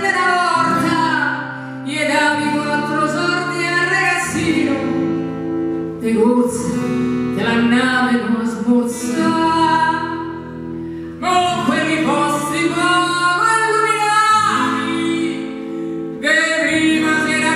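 A woman singing a song live into a microphone, in phrases of a few seconds each, accompanied by acoustic guitar over sustained low notes.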